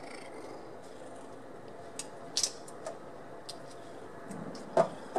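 Scattered sharp clicks and crackles of shrimp shell being peeled and handled by hand over a stainless steel sink, with one louder knock near the end.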